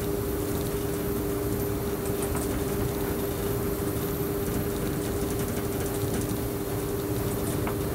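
Electric train running steadily along the track, heard from the driver's cab: a constant rumble under an unchanging two-note hum, with a few faint light clicks.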